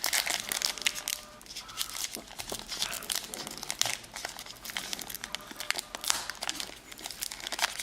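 A Panini Diamond Kings baseball card pack wrapper being crinkled and torn open by hand, in a dense run of irregular crackles that is hard to get open.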